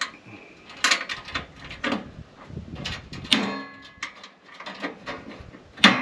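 Several separate knocks and clanks from handling a metal tailgate table on a truck's tailgate. One knock about three seconds in rings briefly, and a sharper, louder knock comes near the end.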